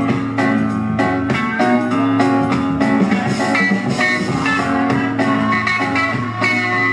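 Loud rock music with electric guitar over a steady drum beat.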